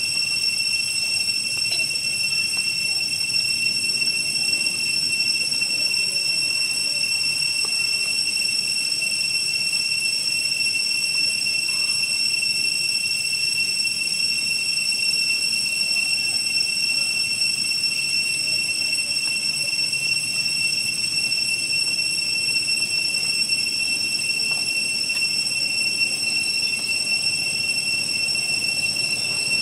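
Cicadas droning: one steady, high-pitched whine that holds unchanged throughout.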